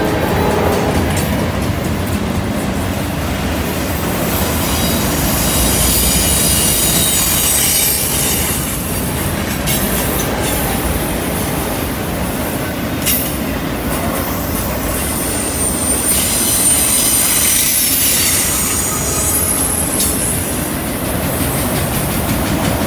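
Freight cars, mostly autoracks, rolling past on a curve: a steady, loud rumble of steel wheels on rail, with high-pitched wheel flange squeal coming and going, strongest about six to eight seconds in and again from about fifteen to twenty seconds in.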